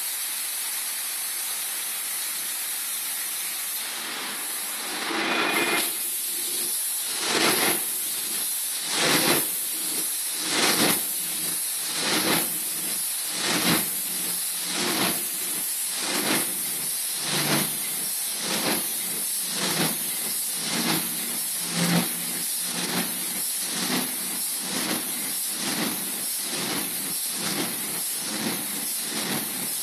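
Large 1933 Burmeister & Wain diesel engine turning over: a steady hiss, then rhythmic puffing strokes that start about five seconds in and come steadily faster, from about one every two seconds to about one a second, as the engine gathers speed.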